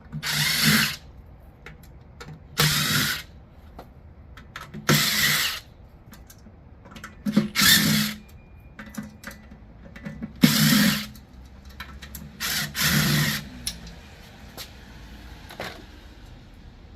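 A power drill run in six short bursts, a couple of seconds apart, backing the screws out of a lithium golf cart battery's case, followed by a few small clicks and taps near the end.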